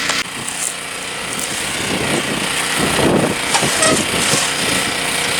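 A small engine running steadily at constant speed, with a few knocks and scraping from hand work on the mower's belt and parts.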